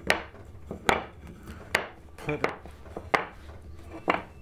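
Hardwood blocks set down one at a time on end onto a wooden workbench, each landing with a sharp wooden knock about once a second, with a quick double knock midway.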